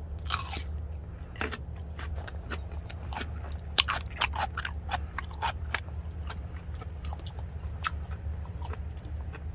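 A man chewing a mouthful of grilled Korean beef (hanwoo) close to the microphone, with many short wet mouth clicks and smacks, over a steady low hum.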